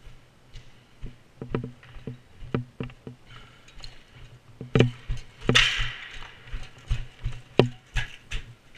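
Footsteps walking quickly over rubble and broken plaster, crunching and knocking about two to three times a second, with a brief hiss a little past the middle.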